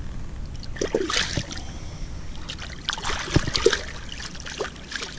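Shallow water splashing as a released catfish kicks free of the hand and swims off. The splashes come in uneven bursts, the strongest about a second in and around three to four seconds in.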